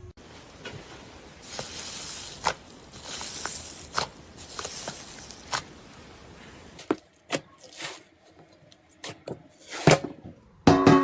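Slime being worked by hand: stretches of wet, crackly hissing in the first half, then a run of sharp sticky pops and clicks, the loudest near the end.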